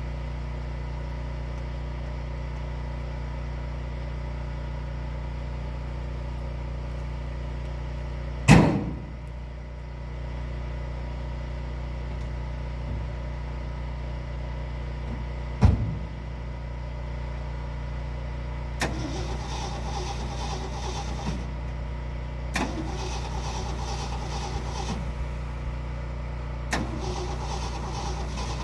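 Two loud thumps about eight and fifteen seconds in, over a steady low hum. Then, from about nineteen seconds in, a 1972 Ford F-250's starter cranks the engine in three tries of two to three seconds each without it catching: a no-start that the owners trace to a fuel problem in the carburetor.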